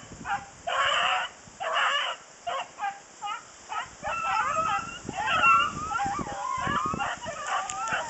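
Hunting dogs giving voice: a run of short barks in the first half, then several dogs baying together in overlapping, wavering cries.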